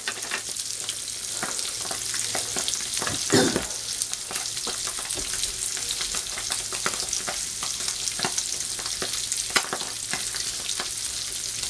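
Sea bass fillets frying skin-side down in butter in a frying pan: a steady sizzle scattered with small crackles and pops, with one brief louder sound about three seconds in.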